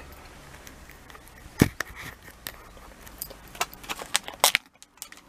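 Scattered light clicks and jingles of a dog's metal ID tags on its collar, with one sharp knock about one and a half seconds in.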